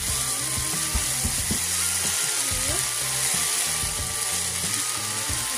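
Ground sausage, diced bell peppers and sliced Polish sausage sizzling as they fry in a hot wok, with slices dropping in and a few sharp knocks.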